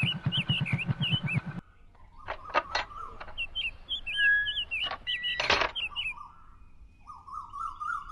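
Motorcycle engine running with a steady rapid beat, cutting off abruptly about a second and a half in, with birds chirping throughout. A few sharp clicks follow, the loudest about five and a half seconds in, and a trilling bird call comes near the end.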